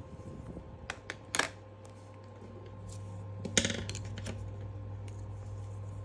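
Coloured pencil scratching briefly on sketchbook paper, then a few light clicks and a sharper knock about three and a half seconds in as pencils are handled, over a steady low hum.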